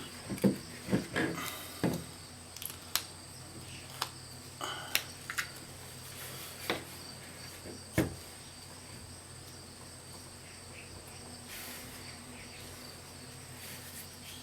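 Handling noises from rubberized adhesive grip tape being pressed and smoothed onto a polymer pistol frame: scattered small taps, clicks and rubs, mostly in the first half, then quieter. A faint steady high-pitched tone runs underneath.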